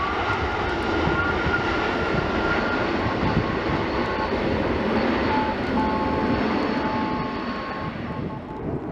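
Airliner engines running as a steady loud rush with faint thin whining tones, mixed with wind buffeting the microphone; it eases off slightly near the end.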